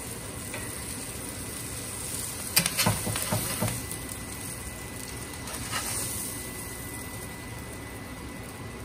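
Burger patties sizzling steadily on a hot cast iron griddle, with a few sharp scrapes and clicks of a steel flat spatula on the iron about two and a half to three and a half seconds in as a patty is lifted, and one more near six seconds.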